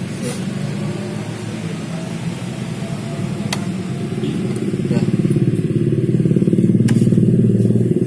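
An engine running steadily, getting louder about five seconds in, with a couple of light clicks over it.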